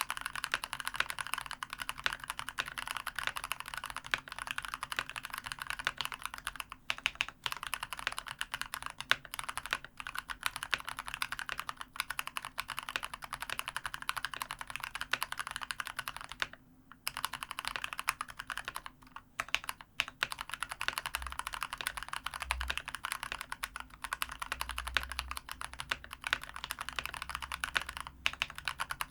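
Continuous fast typing on a COX CK108 mechanical keyboard with spray-lubed Gateron Brown tactile switches and sponge dampening in the case. The keystrokes come in a dense stream of clacks, with a brief pause about halfway through.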